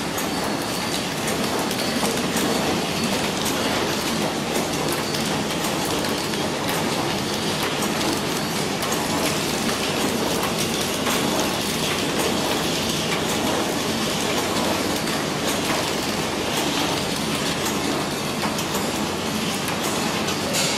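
Horizontal flow wrapping machine running steadily: a continuous mechanical clatter full of quick clicks, with plastic syringes clicking together as they are loaded into its infeed by hand.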